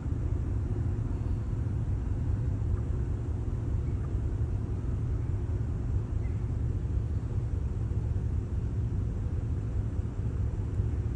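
Ship's engine running with a steady low rumble and a faint hum above it.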